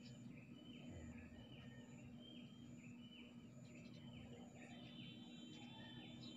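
Faint ambience of small birds chirping: short, similar calls repeating about twice a second, over a low steady hum.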